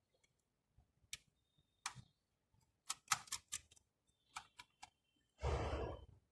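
Light clicks and taps of small hard parts being handled on a fire alarm panel, about a dozen scattered over a few seconds, several in a quick run around the middle. Near the end comes a short rush of noise, under a second long and the loudest sound.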